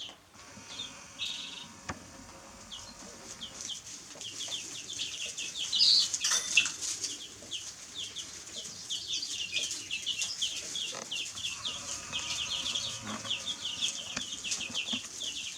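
Baby chicks peeping, with many short, falling chirps that start sparse and become a dense, continuous chorus after a few seconds. A brief louder rustle comes about six seconds in.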